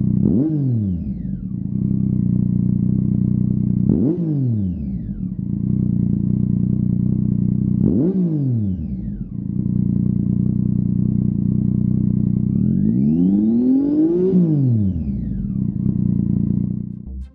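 Triumph Tiger 800's inline three-cylinder engine idling through a Lextek OP5 aftermarket silencer, blipped three times about four seconds apart, each rev rising and dropping straight back to idle. Near the end it is revved more slowly to a higher pitch and let fall back to idle.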